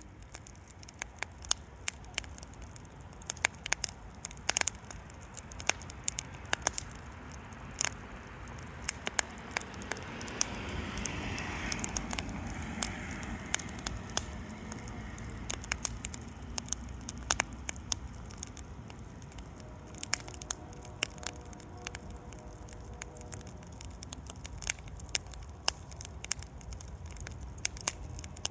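Wood campfire crackling, with sharp irregular pops and snaps over a steady hiss; a louder rush of flame noise swells about ten seconds in and eases off a few seconds later.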